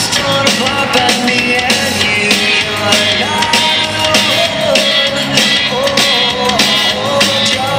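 Rock'n'roll dance music with a singer and a steady beat.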